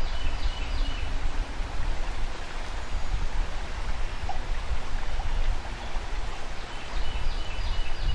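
Steady rush of flowing river water, with a low wind rumble on the microphone.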